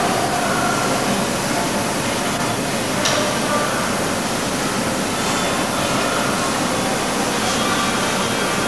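Steady running noise of a hydraulic forging machine's power unit, even and without strokes, with one faint click about three seconds in.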